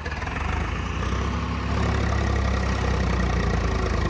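Heavy diesel engine running, growing louder over the first second and then holding a steady low drone.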